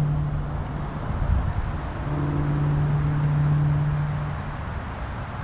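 Wind buffeting the microphone, with a steady low motor hum that fades in about two seconds in and drops away a couple of seconds later.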